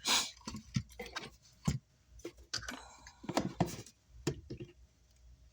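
Irregular clicks and taps of tools and amplifier parts being handled on a workbench, with a short scraping burst at the start.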